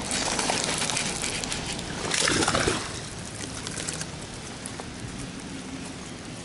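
A hooked bass splashing and thrashing at the water's surface as it is reeled in to the bank, with the loudest splash about two seconds in, then settling to a softer patter.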